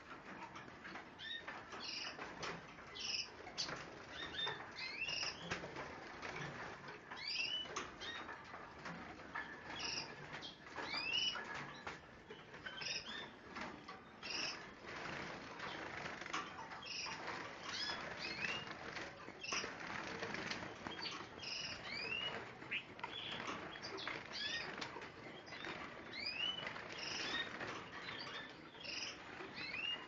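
Many caged finches and canaries chirping over one another, with short call notes sliding in pitch, along with wings fluttering and birds rustling in their cages.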